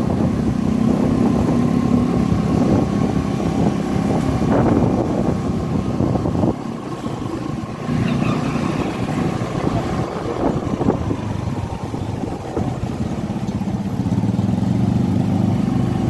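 Motorcycle engine running while riding along, with wind rushing over the microphone. The engine eases off about six seconds in and picks up again a second or two later.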